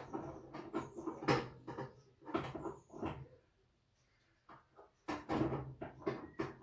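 Knocks and clatter of a rotisserie spit being worked into its mountings in an air fryer oven. The loudest knock comes about a second in, then a few more, a short quiet spell, and a cluster of knocks near the end.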